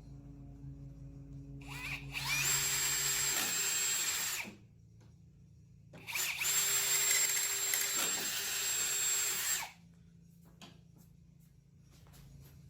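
Electric drill with a 3/32-inch bit pre-drilling screw holes, in two runs of about three seconds each with a pause between, each run a steady whine.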